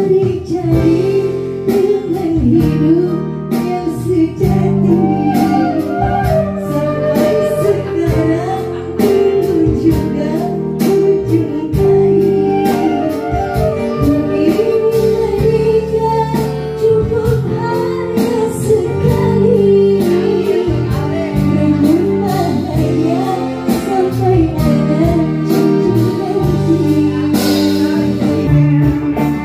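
Live band playing a qasidah song: a woman sings through a microphone and PA over guitars, keyboard and drums, with a steady beat.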